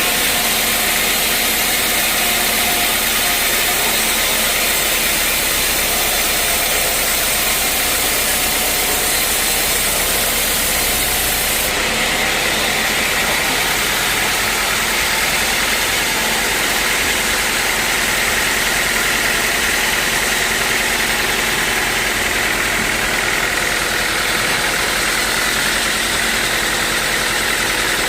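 Sawmill engine running steadily, a loud constant mechanical noise with a strong hiss that does not change over the whole stretch.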